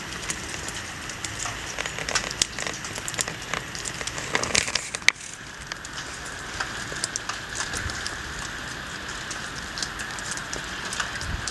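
Rain mixed with wet snow falling: a steady hiss with many small, sharp ticks of drops striking surfaces, a few louder taps about four to five seconds in.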